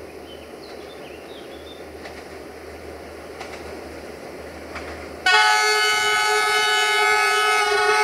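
A GM-engined diesel locomotive's engine running as it approaches, then about five seconds in its air horn blasts loudly and holds a chord of several notes.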